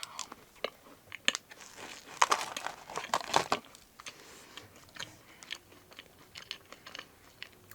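A person chewing and crunching a homemade cookie close to the microphone, in irregular crisp bites and crackles that are thickest in the middle.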